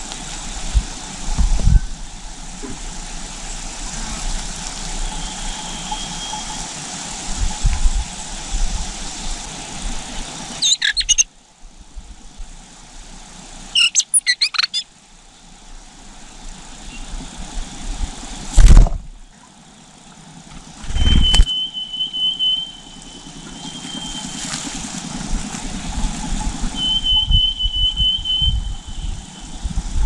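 Outdoor ambience at a bird's nest with a steady hiss. There are two short bursts of rapid high chirps, and a thin high squeal recurs in the second half. Two loud thumps come close together in the middle.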